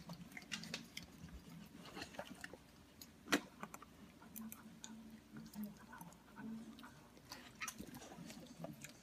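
Siberian husky licking and smacking at sticky dog peanut butter on a metal spoon: faint, scattered wet mouth clicks, with one sharper click about three seconds in.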